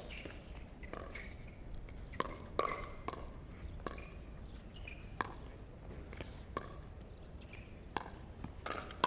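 Pickleball paddles striking a plastic pickleball during a fast rally: a quick, uneven series of sharp pops, about one to two a second.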